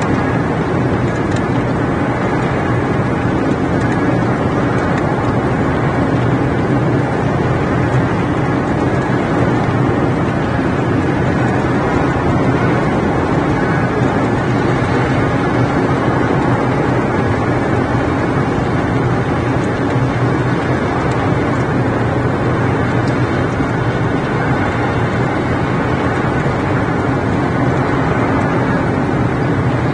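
Steady rain noise with a low hum underneath, unchanging throughout.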